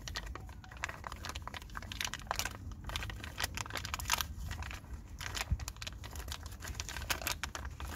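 Thin plastic packaging bag crinkling and rustling as it is handled and worked open by hand, a run of many irregular crackles.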